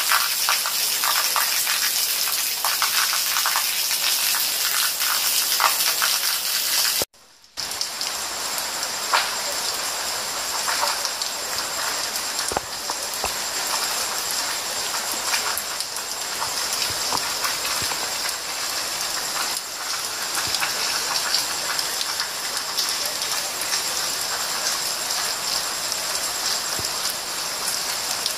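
Steady rain falling on leaves and then on wet ground with standing water, a continuous hiss dotted with small drop ticks. The sound drops out for about half a second some seven seconds in, then carries on.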